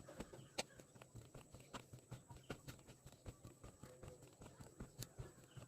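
Faint, irregular knocks and clicks, two or three a second, over a steady low hum.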